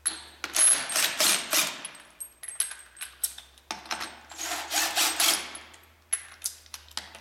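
Cordless power wrench running 20 mm bolts into the tractor's front mount bracket, in several bursts of rapid rattling a second or two long with short pauses between.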